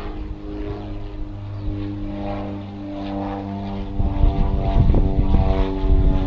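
A propeller engine drones steadily, its pitch shifting slightly partway through. Gusty wind rumbles on the microphone from about four seconds in.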